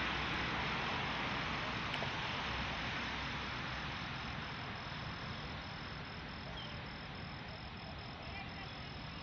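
An insect chirping in a steady high-pitched pulse, about four a second, over a broad rumbling hiss that slowly fades.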